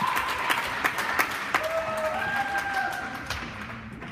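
Spectators clapping and cheering, with a few drawn-out shouts; the applause dies away toward the end.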